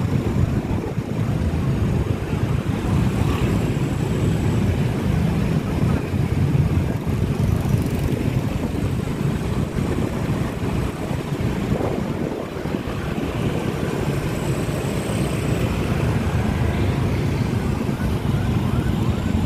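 Small motorcycles and scooters running in a convoy, heard from a moving motorcycle, with wind rumbling steadily on the microphone.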